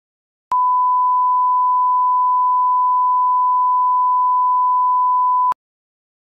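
Steady single-pitch test-tone beep of the kind that goes with SMPTE colour bars, held about five seconds, starting and cutting off abruptly.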